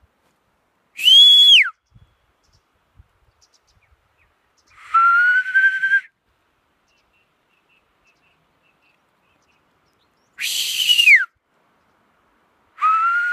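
Sheepdog handler's whistled herding commands: four short whistles a few seconds apart. Two sweep up and then drop sharply, and two are held notes that rise slightly, the last starting near the end.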